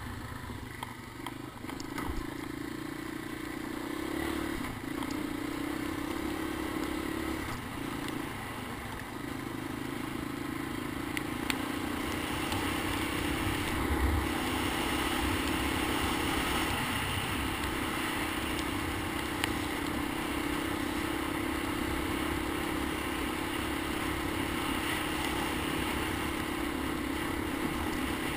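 Honda ATC250ES Big Red three-wheeler's single-cylinder engine running steadily under way on a dirt trail. Its note dips briefly a few times early on, then builds and holds after about halfway, with a few short knocks.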